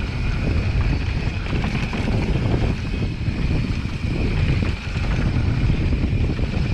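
Mountain bike rolling fast down a dry dirt singletrack: wind buffeting the microphone and tyres rumbling and rattling over the rough trail, with a thin steady high whine.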